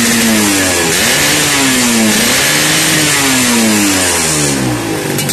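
Suzuki Satria two-stroke motorcycle engine held at high revs, then let off and blipped twice, the revs rising and falling, before it drops back to a steady idle near the end.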